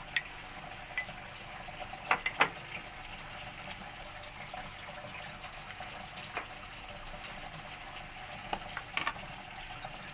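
Light clinks and knocks of a steel bowl and utensils against a plastic mixing bowl as flour is added, over a steady background hiss. There are a few sharp clinks about two seconds in, one near the middle, and a short cluster near the end.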